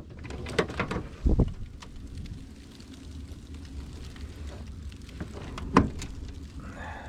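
Ice-storm wind blowing past the open van door as a steady low rumble, with sleet ticking faintly. A few knocks come in the first second and a half, and a single sharp knock comes near six seconds.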